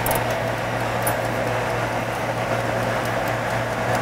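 Steady rushing noise with a constant low hum, under faint quick ticks from a wind-up kitchen timer as its dial is turned.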